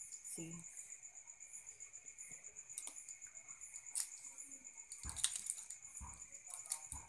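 A boiled balut egg's shell being peeled off by hand, giving small sharp cracks and crackles roughly once a second, with the loudest a little past the middle.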